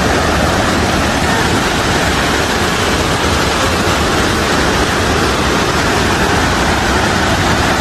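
Fukuroda Falls, a large waterfall, rushing steadily: a loud, unbroken rush of falling water.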